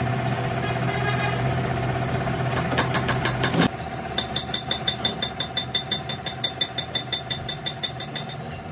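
An engine running steadily, cutting off sharply about three and a half seconds in. Then a fast, even run of ringing ticks, about five a second, for about four seconds.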